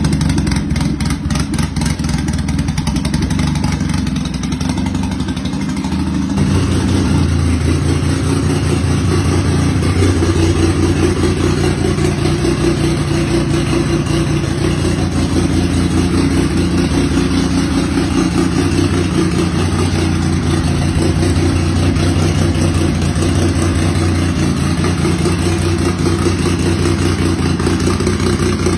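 Turbocharged Daihatsu twin-cam engine running at a steady idle. About six seconds in its note gets deeper and a little louder, then holds steady.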